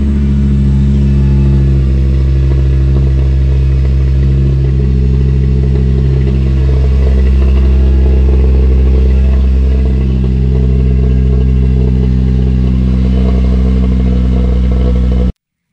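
Volkswagen car engine, freshly started, running at a steady, even idle; loud. It cuts off suddenly near the end.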